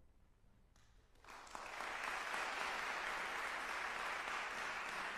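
Audience applauding, starting about a second in and quickly building to a steady level.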